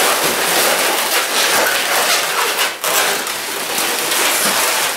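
Latex 260 modelling balloons rubbing against each other and against hands as one is squeezed and stretched: a dense, steady rustle, with a brief drop nearly three seconds in.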